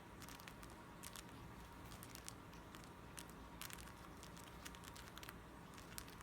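Faint, irregular sharp clicks of cockatiel beaks tapping and clicking against each other as two cockatiels lock beaks, over a low steady hum.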